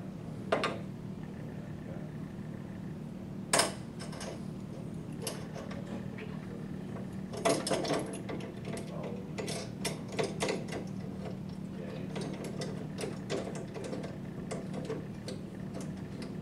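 Small metal clicks and taps as a brass thermostat and its panel nut are handled and fitted through a mounting bracket inside a steel electrical enclosure: a few sharper clicks in the first half, then a run of light, irregular clicks. A steady low hum sits underneath.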